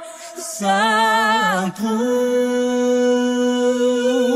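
A cappella vocal singing with no instruments. After a quick breath near the start, a short phrase with vibrato leads into the word 'santo', held as one long steady note near the end.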